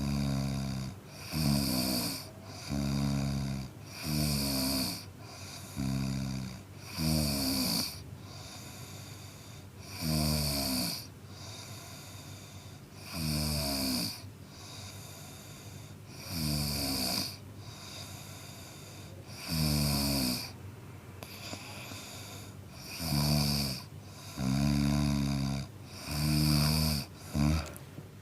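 A man snoring, one snore every one to three seconds. The snores come close together at first, spread out in the middle, and bunch up again near the end.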